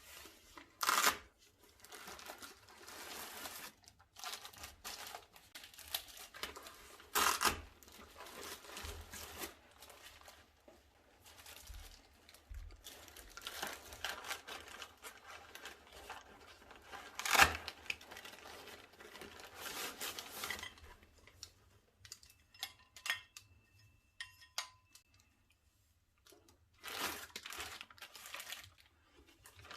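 Packaging being opened and handled: plastic and paper crinkling and tearing in irregular rustles, with a few louder tears and a short run of small clicks near the end.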